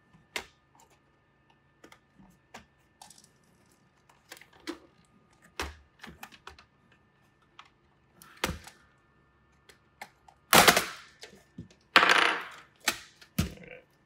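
Plastic snap clips on an HP Pavilion 15 laptop's case clicking and popping as a plastic pry tool works along the seam, with two louder, longer cracking snaps near the end as the case breaks loose.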